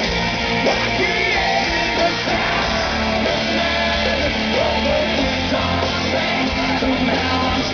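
Loud hard rock played by a band: distorted electric guitars, bass and drums, with a voice singing over them.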